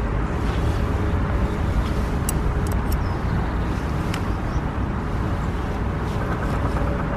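Wind buffeting the camera microphone through its foam muff: a steady low rumble, with a few faint clicks.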